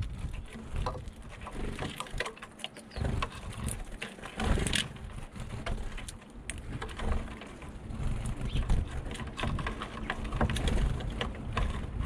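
Small birds, a Eurasian bullfinch among them, feeding on a wooden feeder ledge: scattered light taps and clicks of pecking and seed-cracking, over a steady low rumble.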